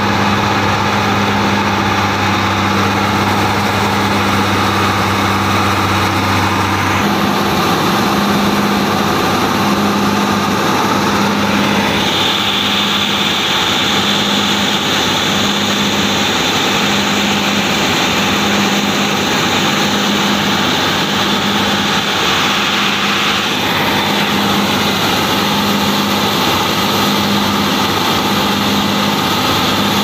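New Holland combine harvester running steadily while its unloading auger discharges threshed rice grain. Loud, continuous machinery drone with a low hum that starts pulsing about once a second from about seven seconds in.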